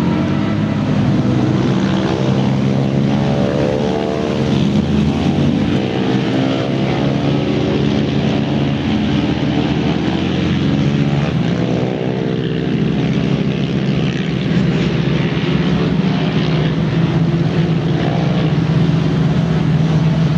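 Lamborghini Gallardo's V10 engine running at low speed, its note rising and falling in the first half, then settling into a steady idle as the car stops.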